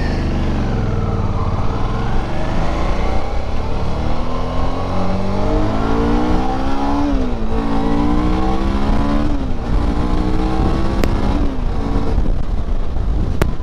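Suzuki V-Strom's V-twin engine accelerating hard, the revs climbing and dropping back at each upshift, about three times in a row.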